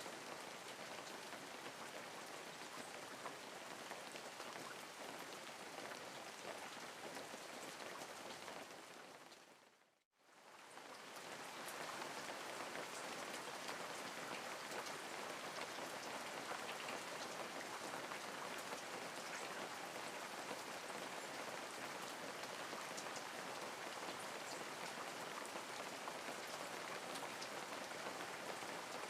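Steady rainfall, an even hiss dotted with faint drop ticks. It fades out to silence about ten seconds in, then fades back up to a slightly fuller rain.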